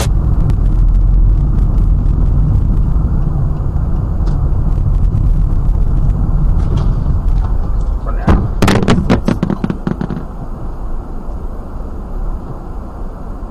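Muffled engine and road rumble of a moving car picked up by a dashboard camera, broken about eight seconds in by a quick cluster of loud bangs: a collision with another vehicle.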